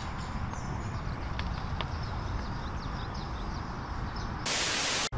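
Outdoor ambience: an uneven low rumble with faint, brief bird chirps. Near the end a loud hiss comes in for about half a second and cuts off sharply.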